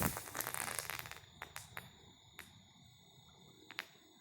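Small aerial spinner firework's spark shower crackling and dying away just after its hissing launch, followed by a few scattered small pops, the last one nearly four seconds in.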